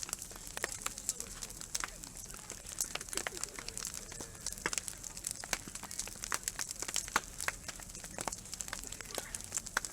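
Wood bonfire crackling, with frequent sharp pops and snaps coming at irregular moments.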